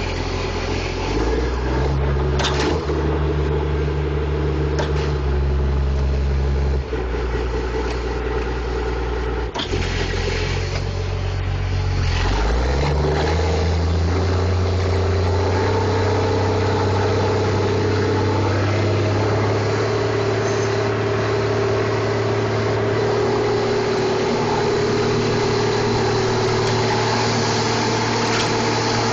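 John Deere 540E skidder's diesel engine running, heard from inside the cab. Its speed shifts a few times, then rises about twelve seconds in and holds steady at the higher speed. A few short knocks are heard early on.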